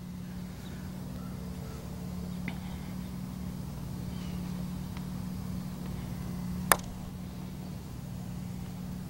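A putter strikes a golf ball once, a single sharp click about two-thirds of the way through, over a steady low hum.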